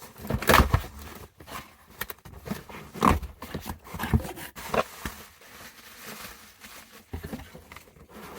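Cardboard box and packaging being opened and handled by hand: irregular scrapes and rustles, loudest about half a second in and again around three seconds in.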